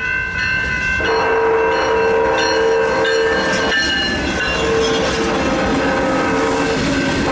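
BNSF diesel freight locomotives sounding their multi-tone air horn as they pass the crossing, the chord breaking off briefly and starting again about a second in. Under it are engine rumble and wheel-on-rail noise, with the crossing's Graham White electronic bell ringing.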